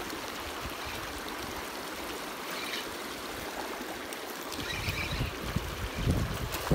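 Shallow river water running over stones, a steady rush. Low rumbling bumps join in over the last couple of seconds.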